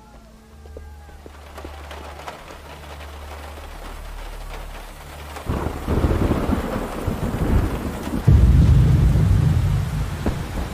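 Heavy rain falling, with a low drone under it. About five and a half seconds in, a loud low rumble swells up, and about eight seconds in a louder, deeper rumble hits and carries on nearly to the end.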